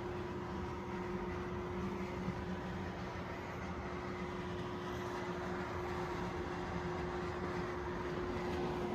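A steady machine hum over a constant hiss, with one unchanging pitched tone.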